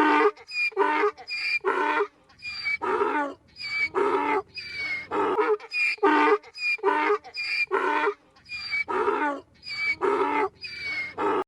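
A farm animal calling over and over in short, pitched calls, about one and a half a second, with brief silent gaps between them.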